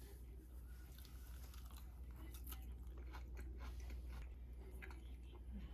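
Faint, irregular crunching and clicking of someone chewing food, over a steady low hum.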